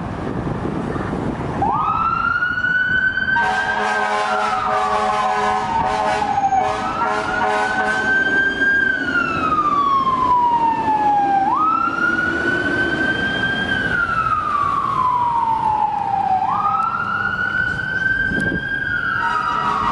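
Fire truck siren sounding on an emergency response, four times, each time rising quickly and falling slowly, about every five seconds. In the first half, a loud horn sounds in repeated blasts over it.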